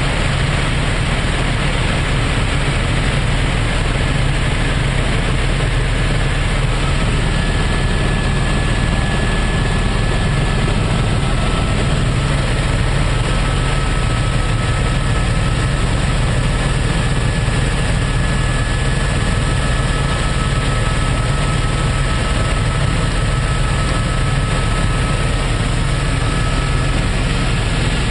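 Steady, loud helicopter cabin noise: the engine and rotor droning without change, with a faint steady high whine joining after a few seconds.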